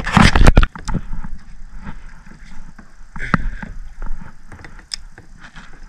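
A loud, brief burst of noise in the first second, then kayak paddling: the paddle blades dipping in the water and the shaft knocking and clicking against the kayak in scattered strokes.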